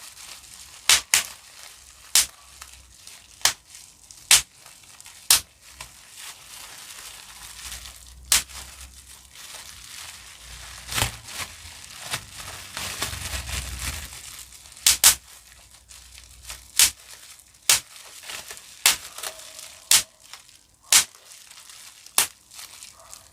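Bubble wrap being popped by hand: single sharp pops, roughly one a second at uneven gaps, with the plastic sheet crinkling between them and a longer stretch of crinkling and handling around the middle.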